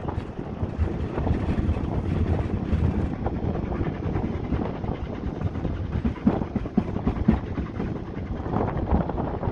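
Fichtelbergbahn narrow-gauge steam train on the move, heard from inside a carriage: a steady rumble and rattle of the wheels on the track, with a few sharper knocks about six to seven seconds in.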